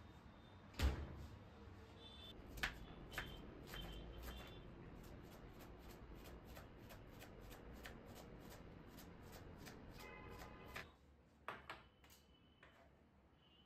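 Quiet kitchen handling sounds: a refrigerator door thumps shut about a second in, followed by a few knocks, then faint taps and scraping of a knife on a plastic cutting board as onion is chopped.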